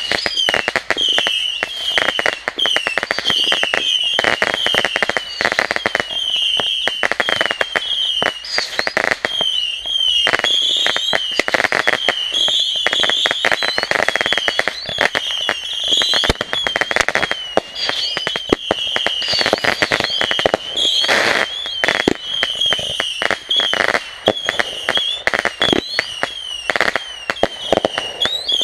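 Consumer fireworks going off without a break: a dense run of sharp pops and crackles, with short high whistles repeating several times a second.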